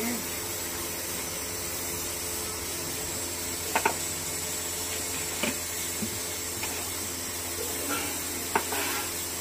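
Steady hiss of food cooking on the stove, with a few light clicks of utensils.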